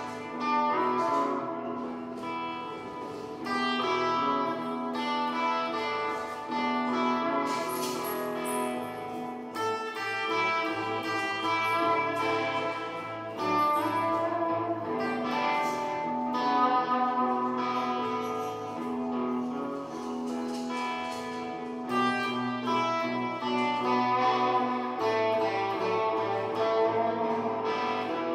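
Guitar played in a blues piece over a backing of held low notes that change every few seconds.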